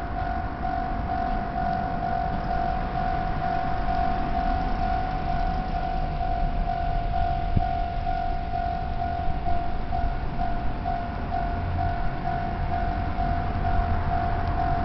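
Japanese level-crossing warning bell ringing in a fast, even repeating ding, with a low rumble underneath that grows louder near the end.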